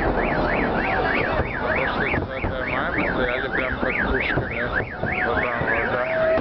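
A car alarm wailing, its pitch sweeping up and down about three times a second, over a dense rumble of fireworks and crowd noise. The alarm stops near the end.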